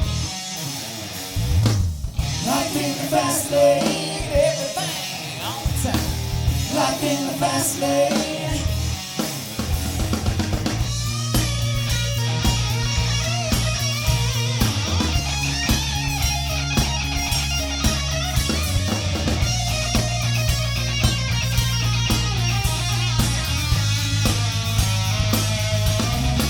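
Live rock band playing electric guitars, bass guitar and drum kit. The sound fills out about eleven seconds in, when the full band comes in with a steady bass line under the guitars.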